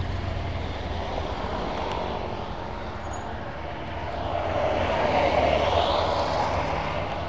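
Motorcycle engine running at low speed with a steady hum. A minivan passes close by, its noise swelling from about four seconds in and fading near the end.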